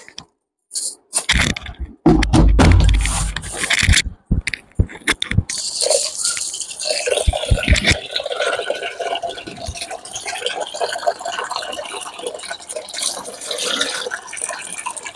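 A few clattering knocks and a heavy bump, then water running and splashing steadily into a vessel.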